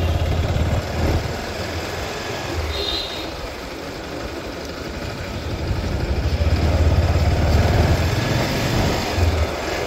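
Bajaj Pulsar 220F's single-cylinder engine running as the motorcycle rides slowly through street traffic, smooth on its newly changed clutch assembly; the engine gets louder about six seconds in. A brief high beep sounds about three seconds in.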